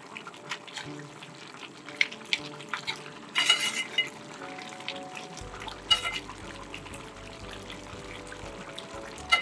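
Wooden spatula stirring a thick, steaming beef curry in a large metal pot, with intermittent scrapes and knocks against the pot; the loudest scrape comes about three and a half seconds in.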